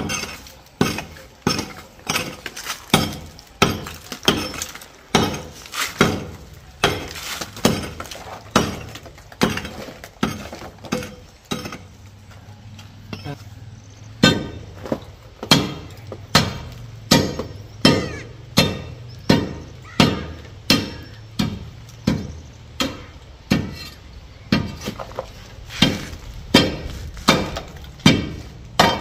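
A steady run of sharp knocks, each with a short ring after it, about three every two seconds. They pause for a few seconds partway through, then resume with a low steady hum underneath.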